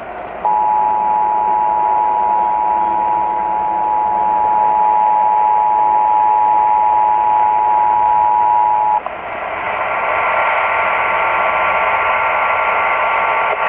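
Emergency Alert System attention signal: the steady two-tone alert (about 853 and 960 Hz together) heard over a radio for about eight and a half seconds, marking the start of a required monthly test. It cuts off abruptly and is followed by steady radio hiss.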